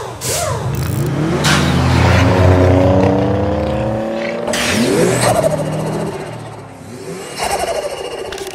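Car engine revving up, its pitch climbing for a few seconds, layered with sudden swooshing sound effects.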